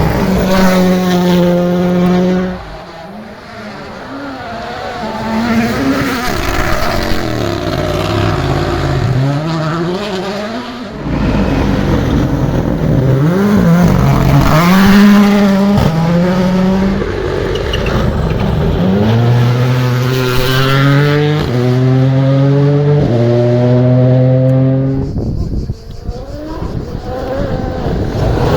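Rally cars driven flat out, engines revving hard with rapid gear changes as they pass one after another. In the second half the engine pitch climbs and falls in a string of quick steps through the gears, with brief tyre noise.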